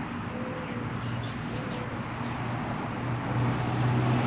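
Steady electric hum of a smoke machine's air pump running while it pushes smoke into the engine's intake for a vacuum-leak test, growing louder about three seconds in.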